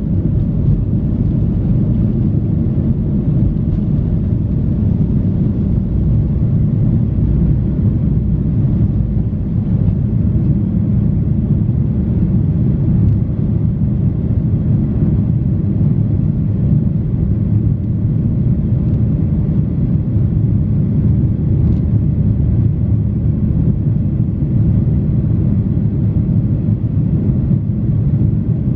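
Cabin noise of a Boeing 737-800 during takeoff and initial climb: a loud, steady low rumble of its CFM56 jet engines at takeoff power and the rushing air, heard from a seat over the wing.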